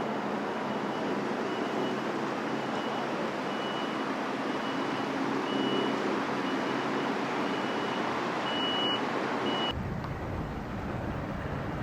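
A vehicle's reversing alarm beeping steadily over a dense wash of vehicle and engine noise. About ten seconds in the sound cuts abruptly to a low rumble.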